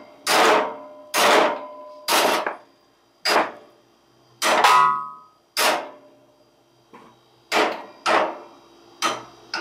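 A big hammer striking the bent steel front spindle of a Craftsman lawn tractor: about ten heavy metal-on-metal blows roughly a second apart, some leaving a short ring in the steel. The spindle is twisted, and the blows are meant to bend it straight.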